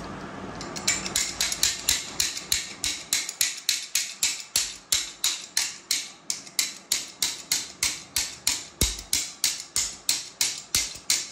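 A hammer tapping a bar-end mirror assembly into the end of a motorcycle handlebar in quick, even strikes, about three a second, starting about a second in.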